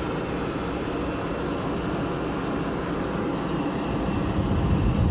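Airliner engine noise, a steady rush with a low rumble that builds near the end.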